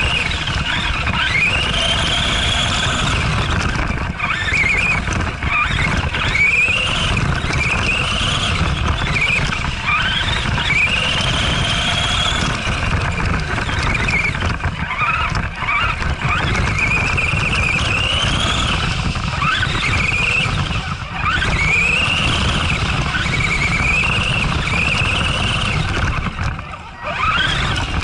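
Arrma Granite 4X4 RC truck's electric motor whining as the throttle is punched and released over and over, each burst a high whine rising in pitch, over a steady low rumble. Heard from a camera mounted on the truck itself; the throttle eases off briefly near the end.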